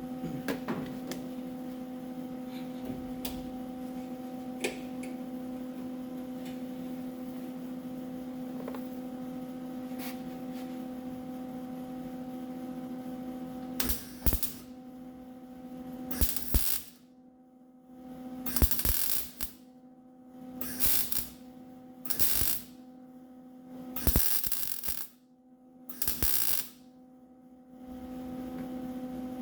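Wire-feed (MIG/flux-core) welder tacking small holes shut in a sheet-metal fender: about seven short bursts of arc noise, each under a second or so, in the second half. A steady electrical hum runs beneath them.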